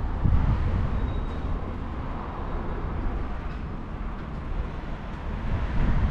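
Steady outdoor ambience with a low rumble of road traffic.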